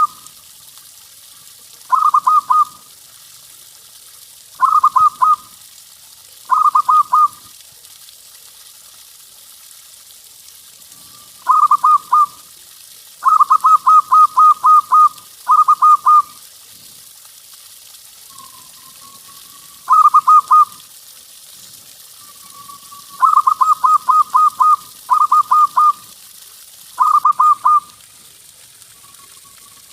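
Zebra dove cooing: about ten bursts of rapid, evenly spaced notes at one pitch, some phrases longer than others, with a few soft drawn-out notes in the gaps, over a steady faint hiss.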